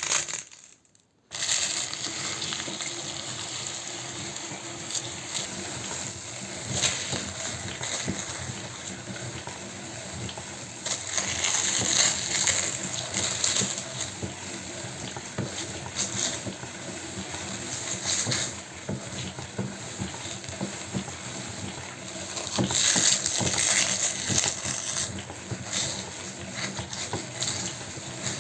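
Meat grinder starting up about a second in and running with a steady hum, crunching and crackling as it grinds something brittle, with louder spells of crunching about eleven and twenty-three seconds in.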